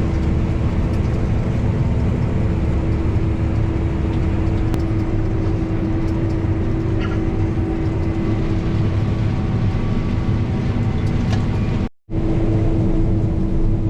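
Combine harvester running steadily, a constant machine drone with a low rumble and a steady hum. It is briefly cut off for a moment near the end, then comes back unchanged.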